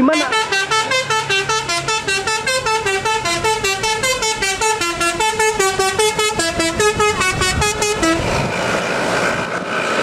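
Bus telolet horn playing a quick tune of short, stepping horn notes for about eight seconds, then cutting off abruptly, leaving bus engine and traffic noise.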